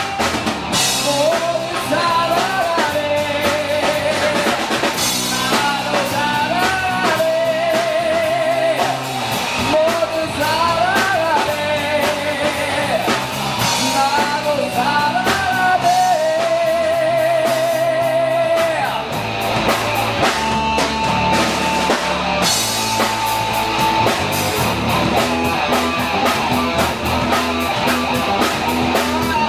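Live rock band playing: a male lead vocal with vibrato over electric guitars and a drum kit. The singing stops about two-thirds of the way through and the guitars and drums carry on.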